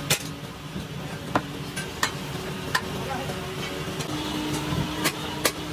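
Sharp metallic clanks at irregular intervals, about eight in a few seconds, from cast-iron mold weights and flasks being handled on sand-casting molds in an iron foundry, over a steady low hum.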